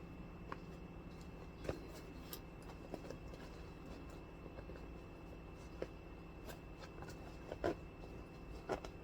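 Scattered light clicks and knocks of a leather bag and its zipper being handled, the sharpest few near the end, over a steady faint hum.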